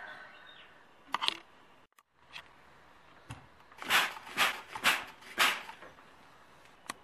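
Steam iron pressing fabric and giving four short hissing bursts of steam, about half a second apart.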